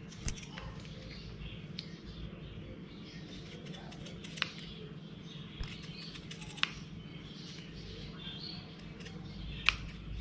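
Scissors cutting through thin orange bladder rubber along a marked line: soft crackly snipping with a few sharp blade clicks, the loudest near the end. A steady low hum sits underneath.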